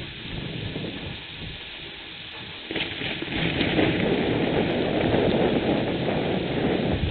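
Thunderstorm: steady rain falling, then a rolling rumble of thunder that builds sharply about three seconds in and stays loud.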